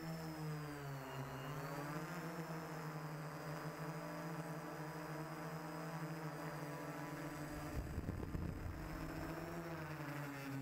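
Lift motors and propellers of a VTOL fixed-wing drone hovering, heard from its own onboard camera: a steady buzzing hum with a thin high whine, dipping in pitch and rising again about a second in. A low rumble of wind buffeting swells briefly about eight seconds in.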